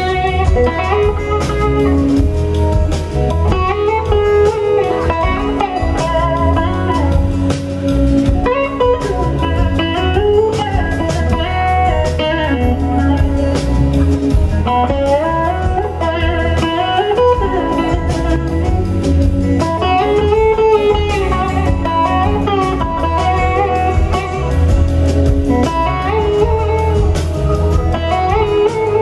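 Live blues band music led by a Gibson SG electric guitar solo. The guitar plays slide-style notes that glide up and down in pitch, over bass, drums and a long held note.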